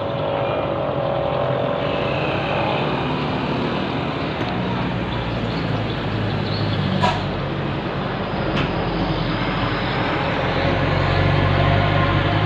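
Street traffic: small motorcycles passing, then a loaded truck's engine growing louder as it approaches near the end. There are two short sharp clicks in the middle.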